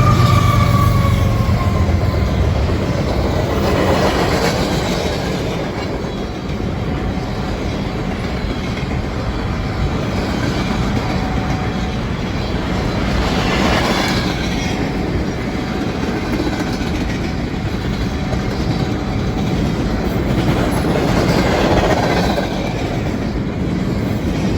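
A train passing, its wheels clattering steadily along the rails.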